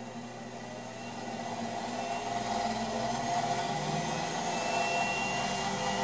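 Treadmill motor running with a 3D-printed cooling fan press-fit on its shaft: a steady whir with rushing air that grows louder over the first two or three seconds, then holds.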